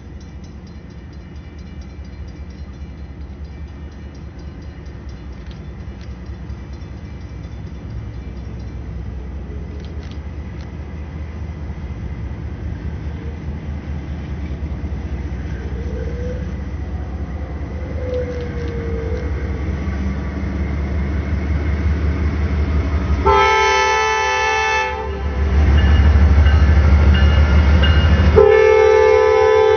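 Norfolk Southern freight train approaching behind GE Dash 9-40CW diesel locomotives, their engine rumble growing steadily louder. Near the end the lead locomotive's air horn sounds twice, a chord of several pitches, with a loud engine rumble between the blasts as the units pass close by.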